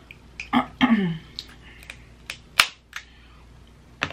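Sharp clicks and cracks of boiled crab shell being picked apart by hand, a handful of separate snaps with the loudest about two and a half seconds in. Near the start comes a short hum of the eater's voice, falling in pitch.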